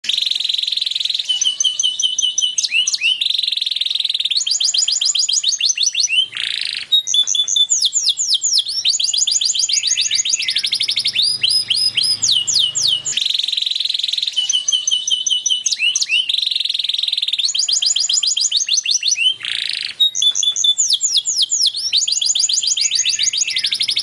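Male canary singing a continuous, loud song of rapid trills of repeated sweeping notes alternating with sustained buzzy notes, the phrase changing every second or two. The same run of phrases starts over about halfway through.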